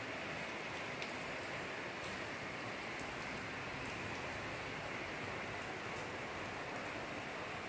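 Steady rain falling, with scattered sharper drop ticks; one is a little louder about a second in.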